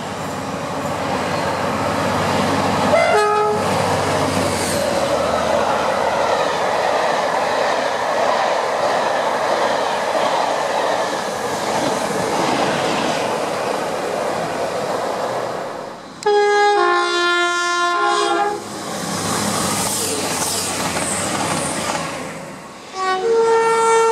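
UK trains passing at speed with horns: a short horn blast about three seconds in, then a train rushing past with its wheels clattering over the rails. After a cut a two-tone train horn sounds for about two seconds, more passing-train noise follows, and near the end another two-tone horn begins as an LNER Azuma high-speed train approaches.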